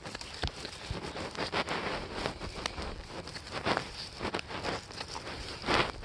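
A tight metal tin being pushed and worked out of a nylon sheath pocket: irregular scuffing and rustling of the fabric with scattered small clicks and taps.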